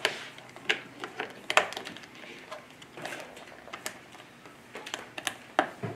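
Irregular light plastic clicks and taps as fingers press a plastic hubcap onto the wheel of a battery-powered ride-on toy car.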